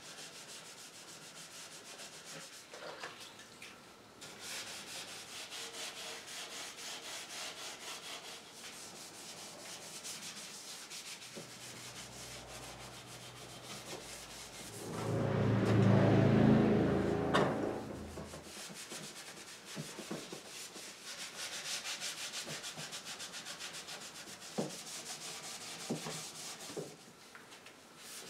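A rag wet with degreaser and hot water scrubbing the wooden frame of a chair in quick rubbing strokes. About halfway through, a louder low rumble swells for a few seconds and fades.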